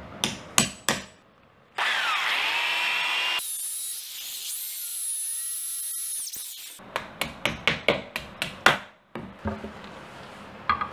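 A few sharp hammer taps on a centre punch marking the wall, then a corded electric drill starts with a whine about two seconds in and runs for about five seconds, boring a hole into the wall. It is followed by a quick run of sharp knocks.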